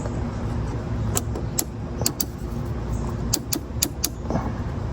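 Sharp metallic clicks and clinks, some in quick pairs, as tools or small metal parts are handled, over a steady low rumble.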